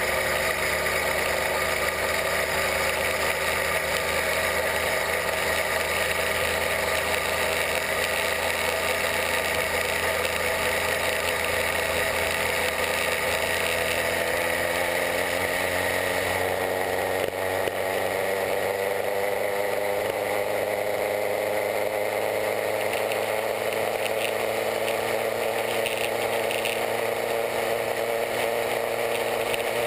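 66/80cc Chinese two-stroke bicycle engine kit running steadily while the bike is ridden along the road, its note shifting partway through.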